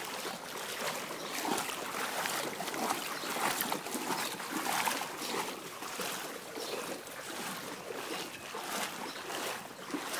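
Legs wading through floodwater, sloshing and splashing in surges about once a second with each stride.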